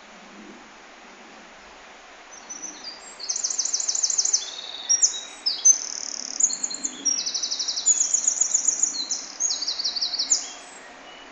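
A songbird singing a long, high-pitched song of rapid trills and short whistled phrases, starting a couple of seconds in and stopping near the end, over a steady background hiss.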